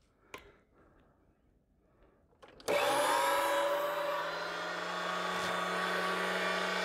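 STX Megaforce Classic 3000 electric meat grinder switched on at its low speed, running empty before any meat is fed. The motor starts suddenly a little under three seconds in and runs with a steady whine.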